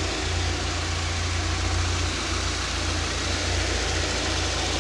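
Peugeot 106 1.1i TU1 four-cylinder petrol engine idling steadily, with its tappets ticking. Under the tappet noise runs a faint whine that grows louder as the engine warms, which the owner suspects is the cambelt.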